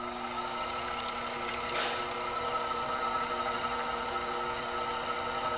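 Electric potter's wheel running steadily at speed, a hum of several steady tones with a hiss over it, as wet clay is centered by hand on the spinning wheel head.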